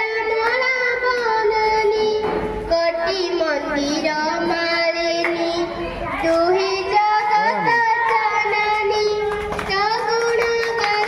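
A child singing a slow melody with long held notes that slide from one pitch to the next.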